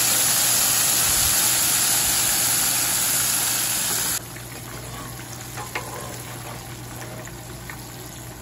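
Battered fish fillets deep-frying in hot oil in a cast-iron Dutch oven: a loud, steady sizzle heard close up. A little over four seconds in it drops suddenly to a quieter, more distant sizzle, with a couple of faint clicks.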